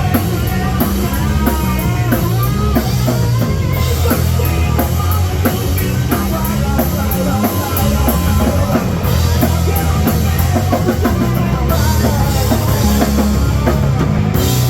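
Rock band playing with a drum kit and electric guitar, the guitar lines bending and wavering in pitch over steady drums and bass.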